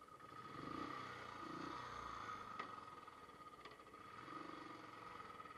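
Royal Enfield Standard 350's single-cylinder engine running, heard faintly, its low note swelling a few times, with a steady high tone underneath and two light clicks in the middle.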